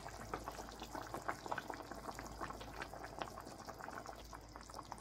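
Chicken pieces simmering in tomato sauce in a wide stainless steel pan: small bubbles popping quietly and irregularly, several a second, as a wooden spoon turns the chicken in the sauce.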